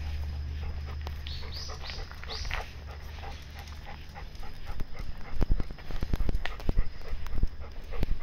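A golden retriever walking on a leash over asphalt, with footsteps and irregular knocks and thumps that are loudest in the second half. About a second in come four quick high squeaks, each falling in pitch.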